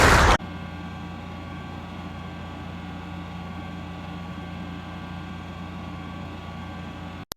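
A loud rumbling noise cuts off abruptly right at the start. It leaves a steady machine-like hum made of many held tones, which stops just before the end.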